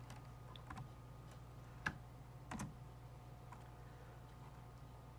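Faint computer keyboard keystrokes: a few scattered single key presses, the loudest about two seconds in, over a steady low electrical hum.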